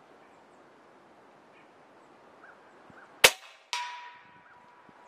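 A single shot from a Snowpeak M60B .357 (9 mm) big-bore PCP air rifle about three seconds in: one sharp crack, followed about half a second later by a fainter hit with a ringing tone that dies away over about a second.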